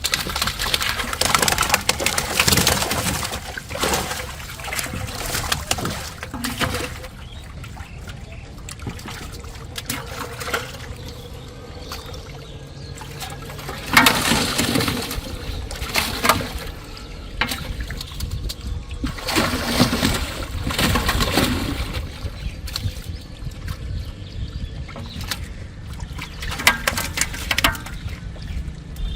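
Water splashing and sloshing in irregular bursts, the loudest about fourteen seconds in and again around twenty seconds.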